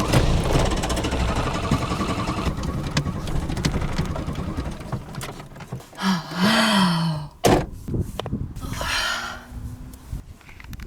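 Renault 9 engine cranking on the starter with a rapid rhythmic churn that fades away after a few seconds without the engine catching. Later comes a single sharp thunk.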